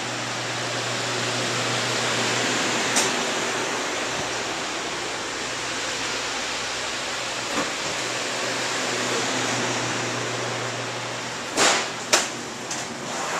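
Walk-in freezer's refrigeration fans running: a steady airy rush over a low hum. The hum stops near the end, where two short knocks sound.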